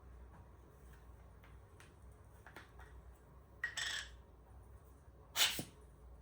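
Camera lenses and cleaning gear being handled: faint small clicks, then two short, louder hissing scuffs, one a little past the middle and the loudest near the end.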